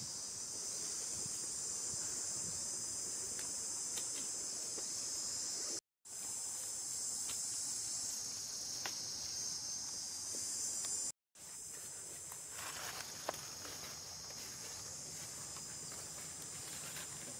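Steady high-pitched drone of a chorus of insects, broken twice by short dead-silent gaps. A few faint ticks sound over it.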